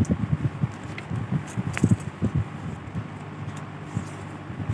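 Handling noise from a hand on a spiral sketchbook: irregular soft knocks and a few sharper clicks, over a low steady hum.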